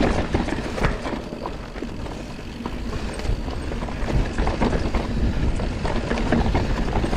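Mountain bike descending rough singletrack: tyres rolling over dirt and roots, with frequent rattles and knocks from the bike, over a steady low rumble.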